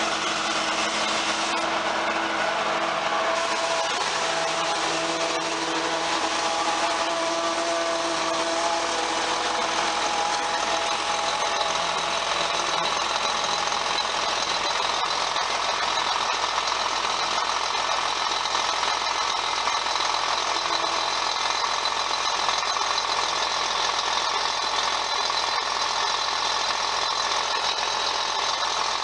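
John Deere 4450 tractor's six-cylinder diesel engine running steadily at low throttle, with a slight change in pitch in the first ten seconds or so.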